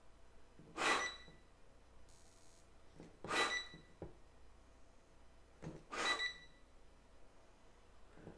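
Three puffs of breath blown into a bark collar's bark sensor, about two and a half seconds apart. Each puff is met by a short high beep from the collar as it triggers its correction.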